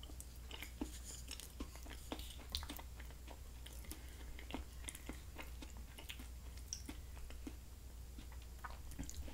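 Quiet chewing and mouth sounds of a person eating, picked up close to the microphone, with faint small clicks scattered throughout.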